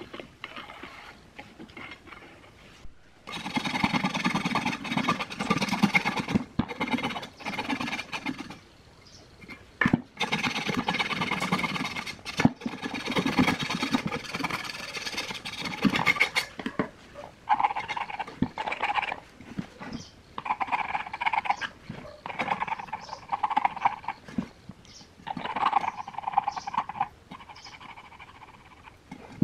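Small knife blade scraping the old, crumbling surround and glue off a subwoofer's metal frame rim. The scraping comes in long continuous runs for the first half, then in shorter separate strokes.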